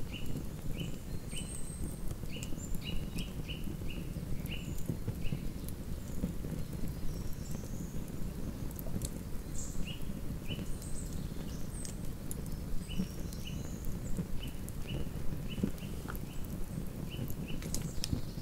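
Wood campfire burning with scattered sharp crackles and snaps over a steady low rush. Runs of short, high chirps repeat through much of it.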